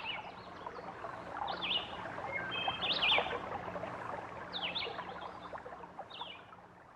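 Birds chirping: short, quickly sweeping high calls repeated every second or so over a soft background hiss, gradually fading out.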